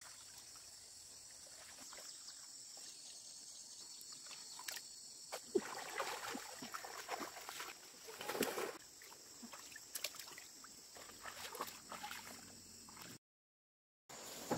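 Irregular splashing and sloshing of shallow muddy paddy water as someone wades and gropes in it by hand, with some rustling, over a steady high-pitched hiss. The loudest splash comes about eight and a half seconds in, and the sound cuts off about 13 seconds in.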